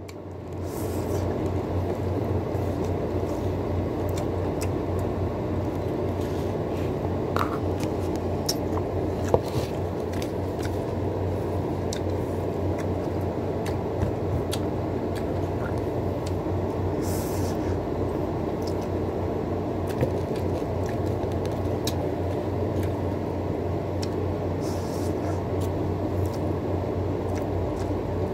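Close-miked eating: noodles with chopped tomato and onion being chewed and slurped, with scattered light clicks of chopsticks against the metal plate, over a steady low hum.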